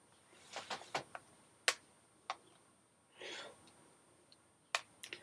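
Small hand-held phones being handled: a scatter of light clicks and taps as they are turned over and set against each other, with a brief soft rustle a little after three seconds in.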